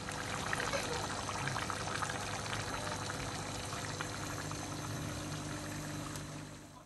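Chicken curry and potato curry cooking in steel pots on a gas stove: a steady simmering hiss with fine crackles, over a steady low hum.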